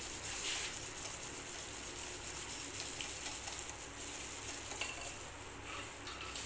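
Wire whisk beating a thin milk-and-egg batter in a glass bowl, a steady wet swishing.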